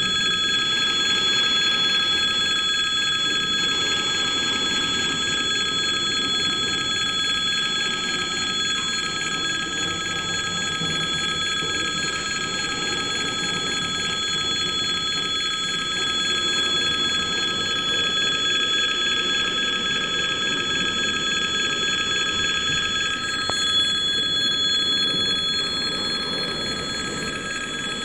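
Level-crossing warning bell ringing continuously, a steady electric ring, over the low rumble of freight container wagons rolling slowly across the crossing.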